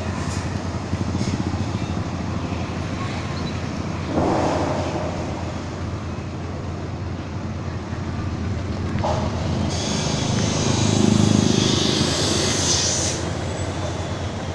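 Steady engine and road noise with some rattle, heard from a moving vehicle in city traffic. It swells louder and hissier for a few seconds about ten seconds in, as traffic passes close by.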